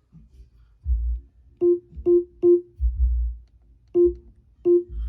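Five short keyboard-like notes, all at the same pitch: three in quick succession, then two more, each fading quickly. Dull low thumps fall between them.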